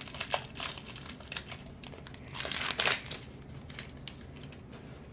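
Plastic wrapper of a Diamond Kings baseball card pack being torn open and crinkled, in irregular crackles with a louder burst about halfway through.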